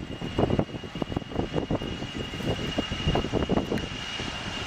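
Airplane engine noise mixed with uneven gusts of wind on the microphone, with a thin steady high whine running throughout.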